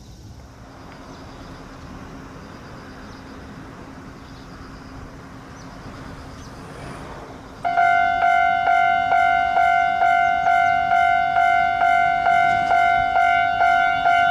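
A Japanese railway level-crossing warning bell starts ringing about halfway through, a loud electronic ding repeated evenly at close to three strikes a second, signalling an approaching train. Before it there is only a low, even background noise.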